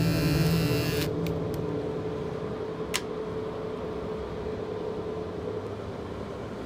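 A low steady drone fading slowly, with one sharp click about three seconds in.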